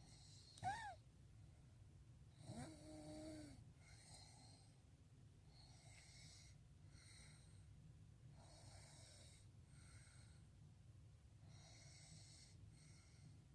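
A sleeping person snoring faintly, in repeated breaths every second or two. A short high squeak comes less than a second in, and a longer, pitched snore about two and a half seconds in.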